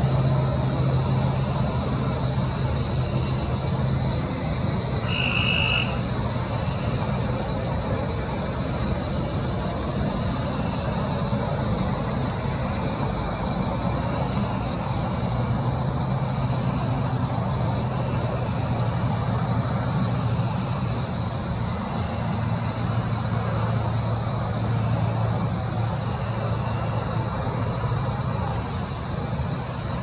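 Night-time insects trilling steadily on two high pitches over a low steady hum, with one short higher call about five seconds in.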